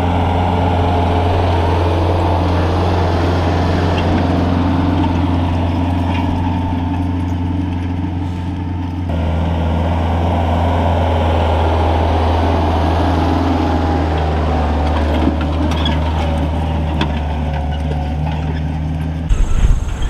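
Branson tractor's diesel engine running steadily as it pulls a tillage implement across a food plot, a loud, even drone. About halfway through the drone drops slightly in pitch.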